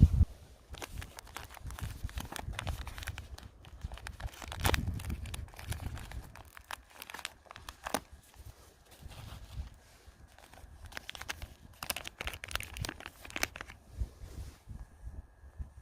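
Wind buffeting the microphone in gusts, with irregular crackling and rustling on top.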